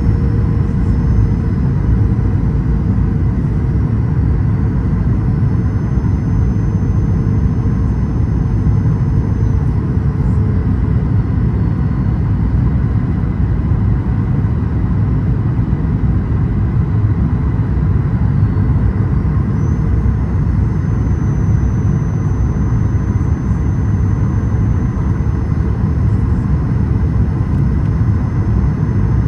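Steady cabin roar inside a Boeing 737-800, from its CFM56 jet engines and the airflow over the fuselage, with a few faint thin whines above it.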